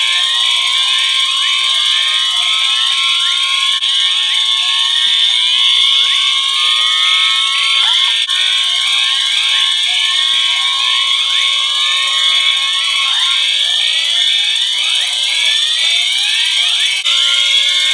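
Many fire alarm horns and sirens sounding all at once: a dense, loud layering of steady high tones, rapidly repeating rising sweeps and a steady mid-pitched tone.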